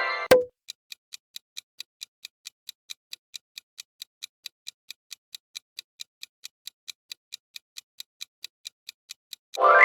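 Quiz countdown-timer sound effect: clock-like ticking, about four ticks a second. A short tone ending in a sharp click sounds just at the start, and the same tone and click come again near the end.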